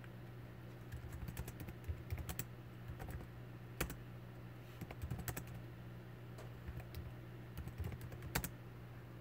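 Irregular light clicks and taps on a touchscreen during drawing, coming in small quick clusters with short gaps, over a steady low hum.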